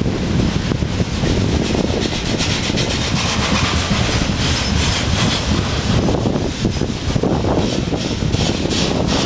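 Freight wagons rolling past at speed: a steady rumble of steel wheels on the rails, with many rapid clicks and knocks from the wheels and couplings.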